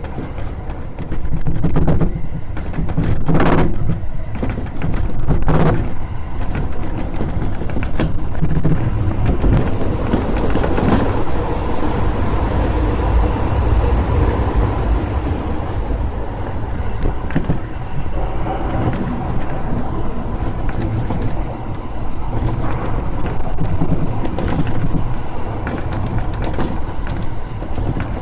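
Toei Shinjuku Line subway train running through a tunnel: a steady, loud rumble of wheels on the rails, with several sharp clacks in the first dozen seconds or so.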